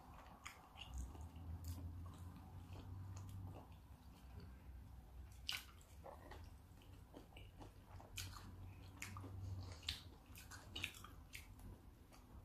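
Close-miked chewing of raw salmon sashimi: faint, soft wet mouth sounds with scattered small clicks and smacks.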